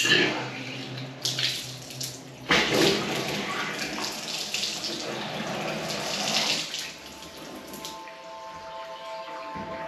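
Water from a deck-mounted bath filler tap running into a freestanding bathtub. The tap is opened at the start, runs loudly from about two and a half seconds in, and is shut off about seven seconds in. The bath is being filled to test its newly made supply and waste connections for leaks.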